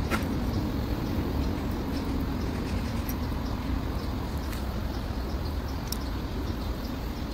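Steady low background rumble with a few sharp light clicks, as broken mirror shards are handled on the ground.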